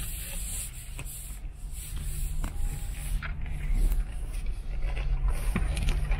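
Inside the cabin of a Land Rover Discovery crawling through dense brush: a low, steady engine rumble, with branches and thorns scraping and screeching along the paintwork and windscreen, plus scattered sharp scratches and cracks.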